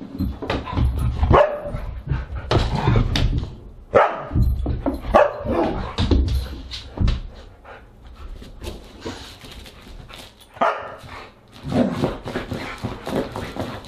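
Siberian husky barking and yipping in a run of short, irregular calls, some bending up or down in pitch.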